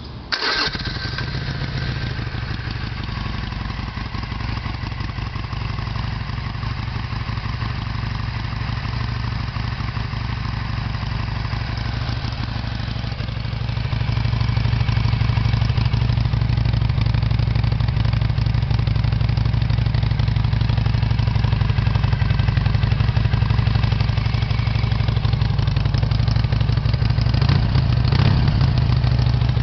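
Harley-Davidson Sportster 883 XLC's air-cooled V-twin through its stock exhaust, catching about half a second in and then idling steadily. About halfway through it runs a little louder and stays there, with a short blip of throttle near the end.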